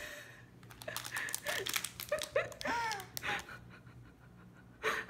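A toddler making a string of short, high-pitched vocal sounds with rising-and-falling pitch, babbling and breathy, with a louder breathy burst near the end.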